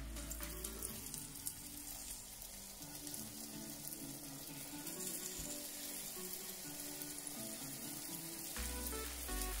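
Urad dal amrati batter sizzling as it is piped in spirals into hot oil in a frying pan, deep-frying, with soft background music underneath.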